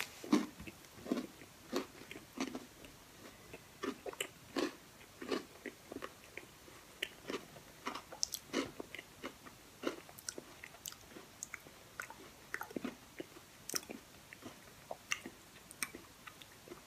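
A person chewing a mouthful of oatmeal bowl topped with Oreo cookies, Reese's peanut butter cups and frozen fruit: irregular crunches and wet mouth clicks, a few a second.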